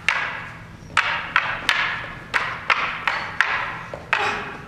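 Wooden quarterstaffs clashing in a stage-combat bout: about nine sharp clacks at an uneven, quick pace, each ringing out with a long echo in a large empty hall.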